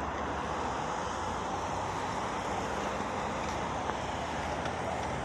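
Steady roadside traffic noise, an even rush with wind on the microphone.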